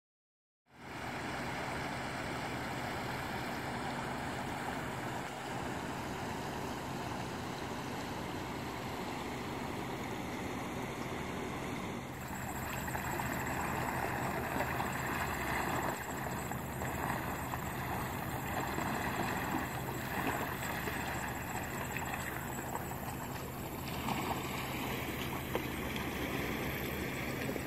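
Fast-flowing floodwater rushing and swirling into a whirlpool at the bank, a steady rushing noise with a low hum underneath. It grows louder and brighter about halfway through.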